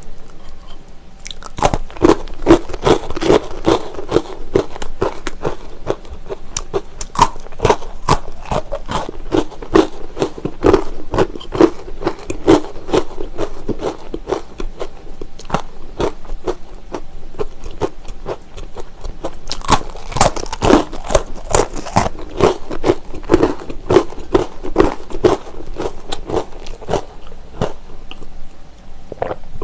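Close-miked biting, crunching and chewing of Utz Honey Wheat braided pretzel twists: a dense run of crisp cracks that starts about a second in and thins out near the end.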